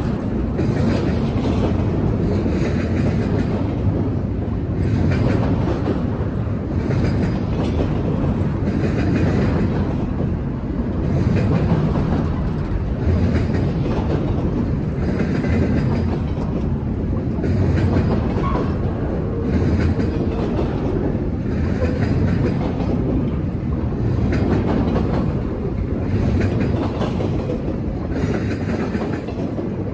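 Freight train cars rolling past close by: a steady, loud rumble of steel wheels on rail, with clicks every second or two as the wheels cross rail joints.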